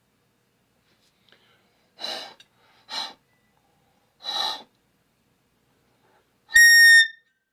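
Three breaths blown into a homemade manual air horn (PVC pipe and fittings, plastic-bag diaphragm, old truck-horn bell) give only rushing air with no tone while the diaphragm is being set. Then, near the end, one short, loud blast with a steady high pitch as the diaphragm catches and the horn sounds.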